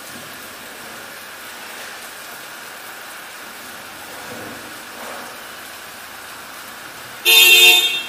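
Steady rain hiss over a residential neighbourhood. Near the end a vehicle horn gives one short, loud toot lasting under a second.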